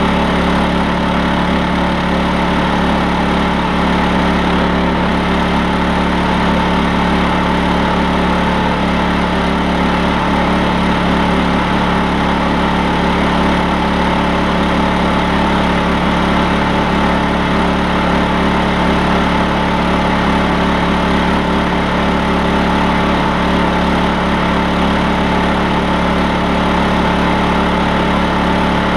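Honda EU2000 inverter generator's single-cylinder four-stroke engine running steadily on gas through a conversion kit, at a constant speed, with its side cover off.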